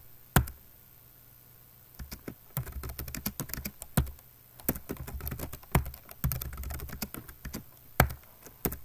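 Typing on a computer keyboard: one keystroke, a pause of about a second and a half, then a steady run of quick keystrokes with a few louder taps.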